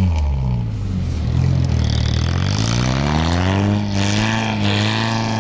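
Off-road vehicle's engine working in deep snow: the revs dip, then climb over about a second and a half and hold high and steady, with a rushing hiss joining as they rise.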